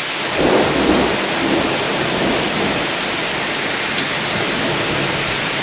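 Heavy rain pouring steadily in a thunderstorm, a dense hiss that swells louder with a low rumble about half a second in.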